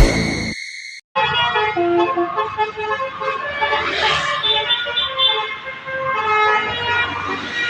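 Bus telolet horn playing a quick melodic tune, several pitched horn notes sounding together and stepping from note to note. It starts abruptly about a second in.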